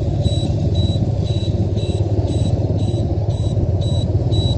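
Motor scooter engine running steadily while riding, with a short high electronic beep repeating about twice a second: the scooter's turn-signal beeper, sounding as it turns across an intersection.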